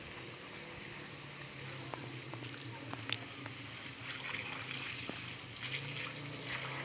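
Water running from a garden hose onto the soil at the base of a fruit tree, under a low steady hum, with one sharp click about three seconds in.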